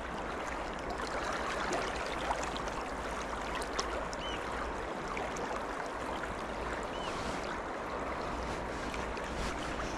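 River water rushing steadily past the wading angler, a flowing salmon river. A few short high chirps sound over it.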